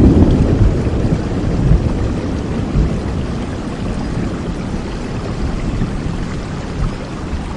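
Steady rain with a low rumble of thunder that peaks at the start and slowly fades away over the first few seconds.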